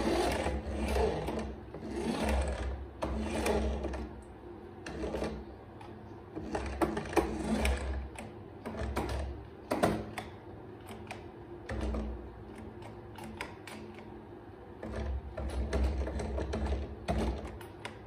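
Remote-control toy bus's small electric drive motor and plastic gearbox whirring in spurts of a second or two as it is driven, with a few sharp clicks in between.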